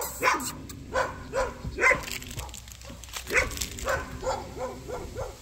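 Dogs barking repeatedly, about a dozen short barks at uneven intervals.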